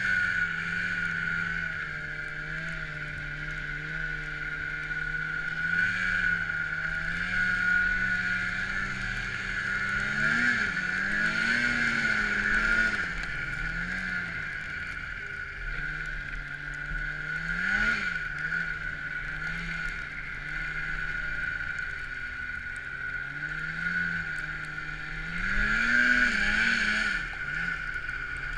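Snowmobile engine running hard through deep powder, revving up and easing off again and again, with a steady high whine under it. The loudest surges come about ten to thirteen seconds in, again near eighteen seconds, and near the end.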